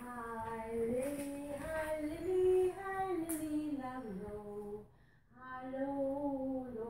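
A woman's voice singing a wordless tune in long held notes that glide up and down, with a short break about five seconds in.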